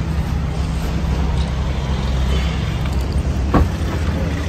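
Steady low rumble of an idling engine, with one sharp click about three and a half seconds in as the MG Comet EV's tailgate latch is released.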